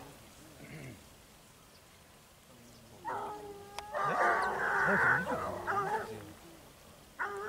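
A pack of scent hounds giving tongue on a hare's trail. It is quiet for the first few seconds, then several bays overlap for about three seconds, and the chorus starts again just before the end.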